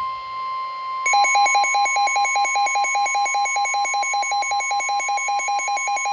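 Emergency alert attention tones ahead of a severe thunderstorm warning: one steady, unbroken high tone, joined about a second in by rapid electronic beeping, about six beeps a second, layered over it.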